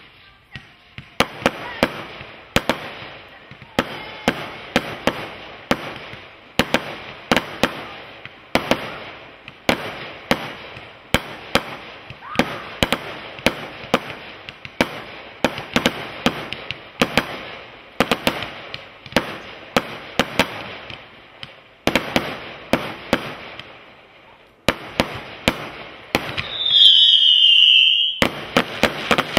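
Brothers Pyrotechnics Grand Slam linked firework cake firing a long, irregular run of sharp shots and bursts, one to three a second, with a brief lull near the end. Then a loud whistle, falling slightly in pitch, sounds for about a second and a half over the shots.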